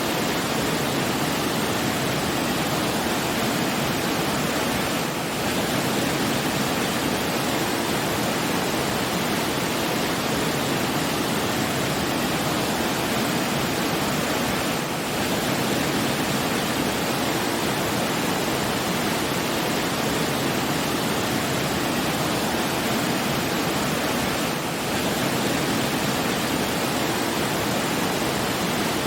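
Steady rushing water, like a waterfall or fast stream, an even full-range hiss with no music over it. The level dips briefly about every ten seconds.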